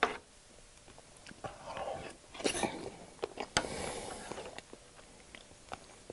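Wooden spoon stirring and squishing soft scrambled eggs in a griddle pan, with several sharp clicks as the spoon knocks against the pan.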